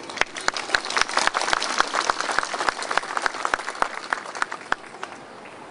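Audience applauding, with many separate claps audible, thinning out and dying away about five seconds in.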